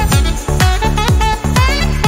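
Background electronic dance music with a steady kick drum, about two beats a second, under a pitched melody.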